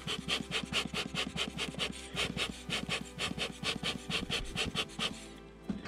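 Dried cow dung crumbled and rubbed apart by hand over a bee smoker: a dry, rhythmic rasping at about five strokes a second that stops about five seconds in.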